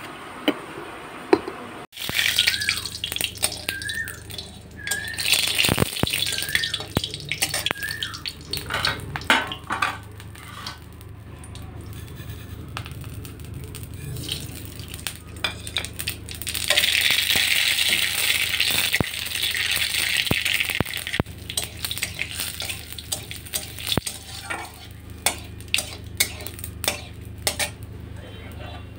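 Metal spatula clinking and scraping in a steel kadai of hot oil. After ingredients are tipped in, the oil sizzles loudly for a few seconds just past the middle.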